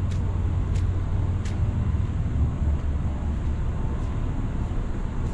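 Wind buffeting the microphone: a steady, gusting low rumble, with a few faint ticks in the first second or two.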